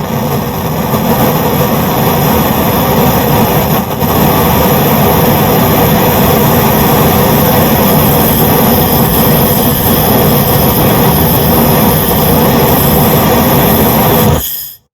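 Gas blowtorch flame burning with a steady, loud rushing hiss, dipping briefly about four seconds in and shut off shortly before the end.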